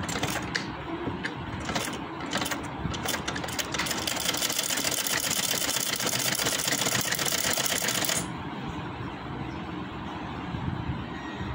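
Sewing machine stitching lace onto a fabric hem: a few slow, separate stitches at first, then fast continuous stitching for about four seconds that stops abruptly about eight seconds in.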